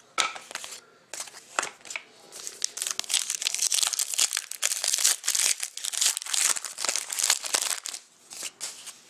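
Card pack wrapper being torn open and crinkled by hand: a few sharp crackles, then several seconds of dense crinkling.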